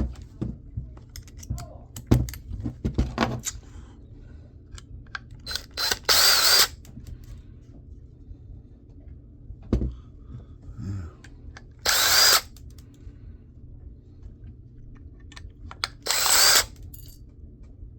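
Small power screwdriver fitted with a T4 Torx bit, run in three short bursts of about a second each to back screws out of a laptop hard drive, with a faint rising whine in each burst. Light clicks and knocks of the parts being handled come before the first burst.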